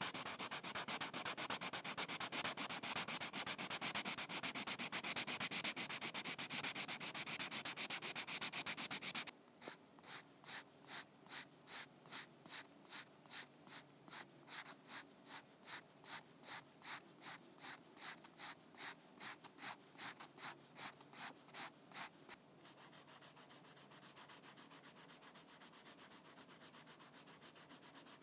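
Pencil crayon drawing on paper. It starts as fast continuous scribbling, switches abruptly about nine seconds in to separate, even strokes at about three a second, and near the end changes to a fainter, lighter steady shading.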